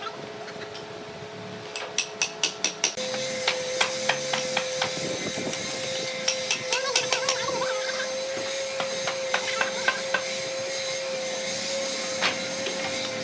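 Hammering on hardwood: a quick run of about six sharp strikes, then scattered knocks. About three seconds in, a steady machine hum with a hiss starts and runs on under the knocks.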